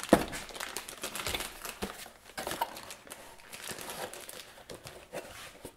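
Clear plastic bag crinkling and rustling as it is handled and pulled open to take out a battery, with a light knock right at the start.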